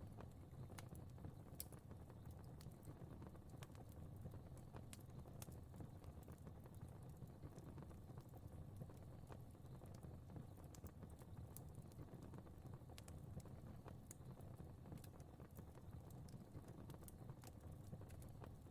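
Faint crackling fire: scattered sharp pops and ticks, irregularly spaced, over a low steady rumble of flames.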